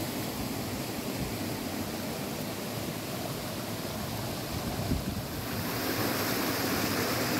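Mountain stream rushing over rocks, a steady hiss of running water that gets louder and brighter about five and a half seconds in. A single low thump comes just before.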